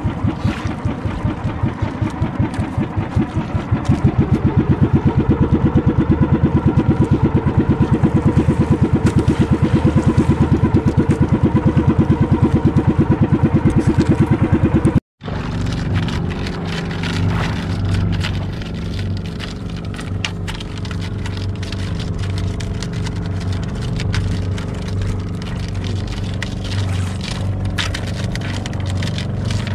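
Outrigger fishing boat's small engine running with a rapid, even low pulsing that grows louder about four seconds in. About halfway there is a brief break, and then it goes on as a steadier hum with light clicks over it.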